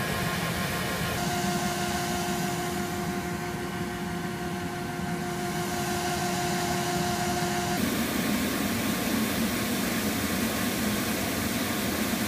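Steady rushing roar of a wood-fired homemade blast furnace burning under forced air. A steady two-note hum runs from about a second in and stops about eight seconds in, where the sound changes abruptly.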